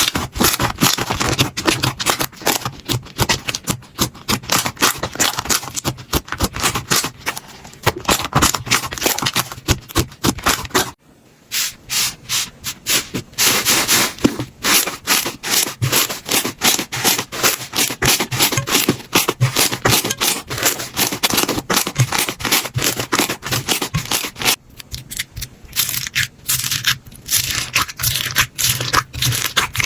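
Slime being pressed and squeezed by hand: a dense run of rapid crackling clicks, with a brief break about eleven seconds in.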